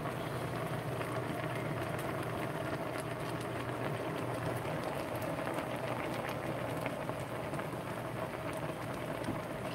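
A stockpot of seafood-boil broth boiling on the stove, a steady bubbling and crackling, with a steady low hum underneath.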